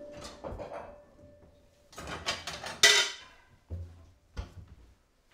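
Kitchen crockery and cupboard sounds: a drawer pushed shut, then dishes clattering together for about a second, loudest just before three seconds in, followed by a couple of dull knocks as a wall cupboard door is shut.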